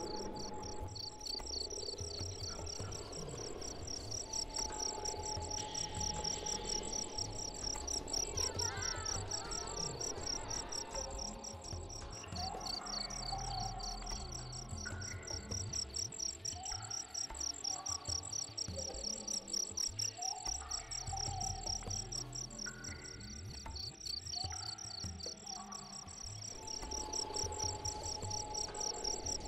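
Field crickets chirping in a steady, fast-pulsing trill, the night-time ambience of a jungle. Short low tones recur every few seconds underneath in the middle part.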